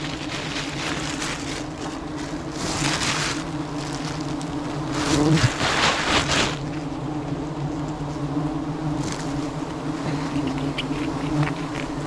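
A swarm of honeybees buzzing steadily around an opened wild hive. Two spells of louder rustling noise come over it, about three seconds in and again around five to six seconds in.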